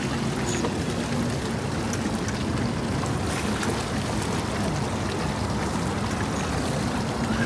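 Steady boat noise: an outboard motor running low under the slosh and splash of choppy water around the hull.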